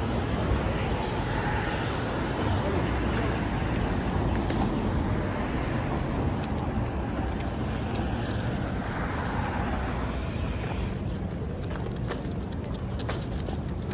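Steady city street traffic noise, the running of passing cars. A few light clicks come in the last few seconds.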